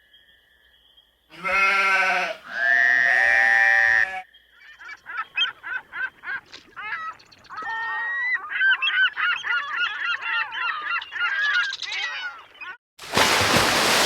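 Sound-effect animal calls: two long, pitched honks, then a long run of rapid, chattering, cackling calls. Near the end a sudden loud rushing noise bursts in and slowly fades.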